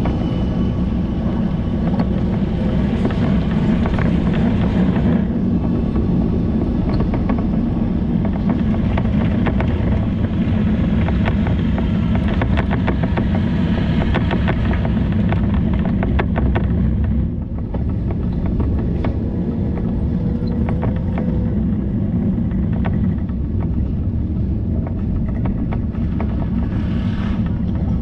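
Steady low rumble of riding noise on a moving bicycle, with frequent small clicks and rattles.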